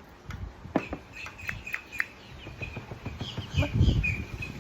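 Birds chirping, a quick run of short high chirps in the first two seconds and thinner calls after. A louder low rumble about three and a half seconds in.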